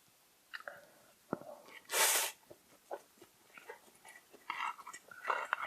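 Close-up eating and mouth sounds from someone eating spicy noodles: scattered clicks and smacks, small breathy noises, and one short loud hiss about two seconds in.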